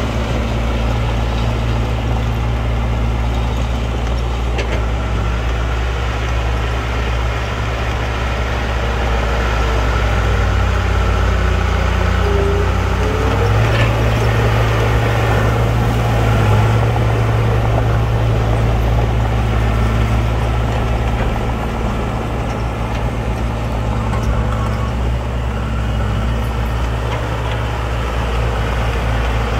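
Diesel engines of heavy earthmoving machines running steadily, with a low drone; the engine note rises and strengthens for several seconds midway, then settles back.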